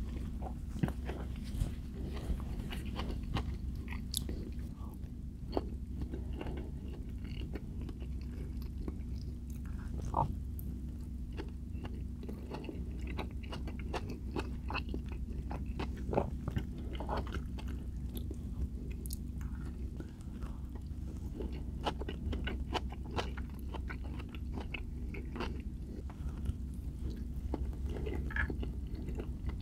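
A person chewing and biting food close to the microphone, with many small sharp mouth clicks over a steady low hum.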